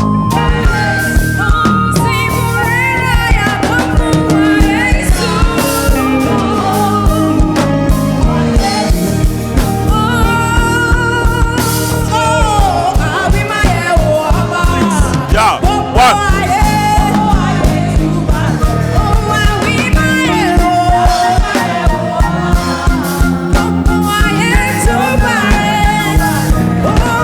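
Live band with a choir playing a song through: a steady drumbeat under a sung melody that slides between notes, heard in rehearsal.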